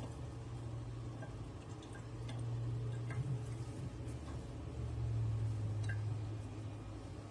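Faint scattered clicks and light taps from handling a kitchen faucet's pull-down sprayer, over a steady low hum, with no water running.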